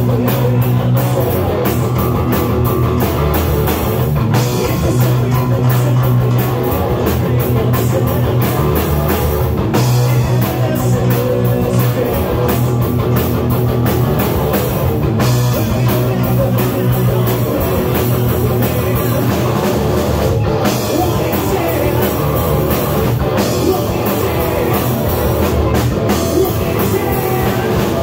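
Live rock band playing loudly and without a break: distorted electric guitar, electric bass guitar and a full drum kit driving a fast, steady beat.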